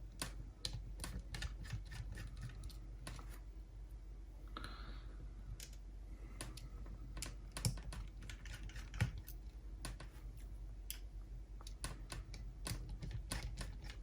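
Irregular small clicks and taps of hand tools and plastic parts being handled while a Sony MZ-RH1 MiniDisc recorder is taken apart on the bench, with two slightly sharper knocks in the middle, over a faint steady low hum.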